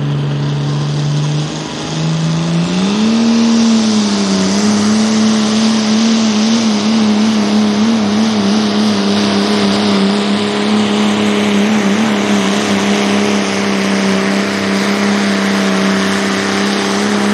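Turbo-diesel pulling pickup under full throttle, dragging a weight-transfer sled. The engine note dips briefly about two seconds in, climbs, then holds a high steady pitch with a slight waver and a strong hiss above it.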